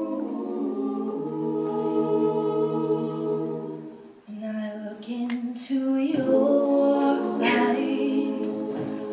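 All-female a cappella group singing in close harmony: a held chord for about four seconds, a brief dip, then the voices come back in moving harmony with sung words.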